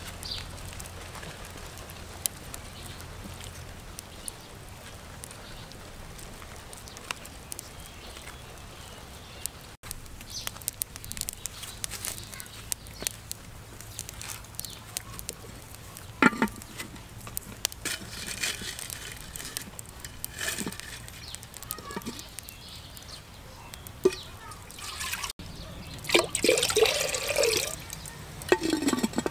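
Water poured and trickling into an earthenware clay pot, loudest near the end, with scattered light knocks and rustles of handling before it.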